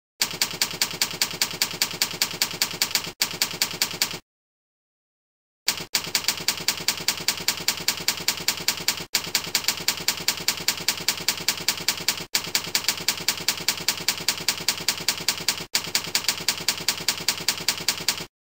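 Slide-show typewriter sound effect: a fast, even run of typewriter key clicks, about four a second, as text appears letter by letter. It stops for about a second and a half near four seconds in, then runs on until just before the end.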